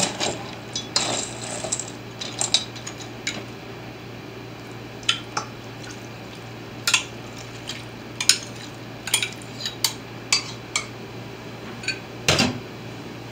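Metal spoon clinking and scraping against a stainless steel mixing bowl as moist bread stuffing is stirred, in irregular clinks. A louder clatter comes near the end.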